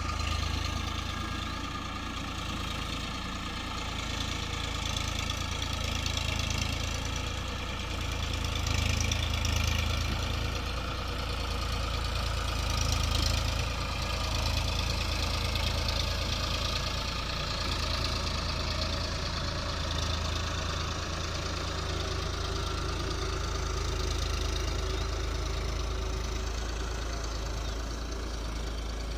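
Diesel engine of heavy machinery running steadily, its level swelling a few times as it is worked harder.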